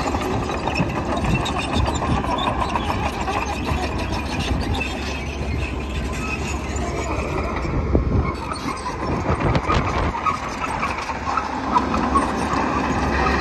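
Crawler bulldozer's diesel engine running steadily as it pushes and levels soil, with several sharp metallic clanks in the second half.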